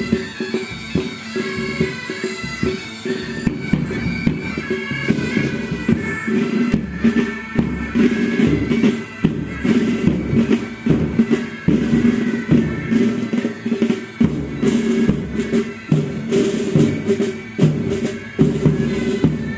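A military pipe band playing: bagpipes sound a chanter melody over steady drones, with drums beating throughout.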